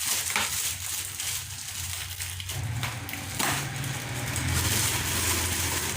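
Plastic packaging crinkling and rustling as a parcel is unwrapped, with irregular crackles throughout.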